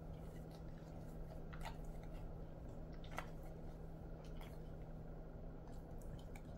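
A dog's mouth smacking and licking with a few faint sharp ticks as its muzzle is wiped with a tissue, over a steady low hum.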